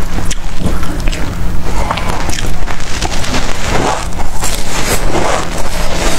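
Close-miked eating sounds: dense crackling and crunching as mouthfuls of small black seeds are chewed, over a low steady hum.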